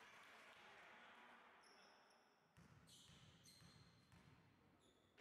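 A basketball being dribbled on a wooden gym floor before a free throw, faint.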